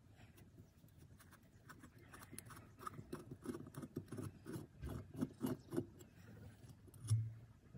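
Flat-blade screwdriver unscrewing a rusted screw from an old hand drill's metal body: a run of short metal creaks and scrapes as the seized screw is worked loose, with one louder low knock near the end.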